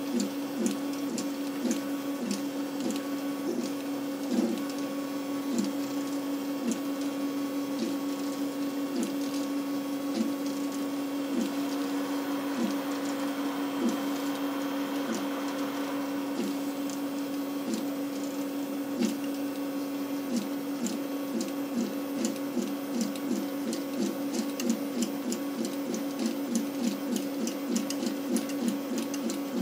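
Homebuilt CoreXY 3D printer printing. Its stepper motors hum a steady tone, broken by short chirps each time the print head changes direction, and the chirps come quicker in the last third.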